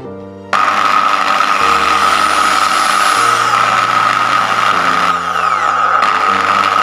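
Electric drill starting suddenly about half a second in and running steadily at speed with a high whine, its twist bit boring into a metal plate.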